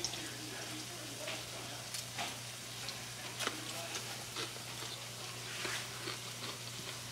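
Food frying in a nonstick pan over a gas burner: a steady sizzle with scattered small pops, over a steady low hum.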